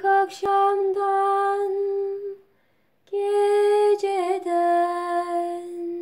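A woman singing a Turkish folk song (türkü) unaccompanied, in long held notes with a brief pause for breath in the middle and a wavering vocal ornament about four seconds in.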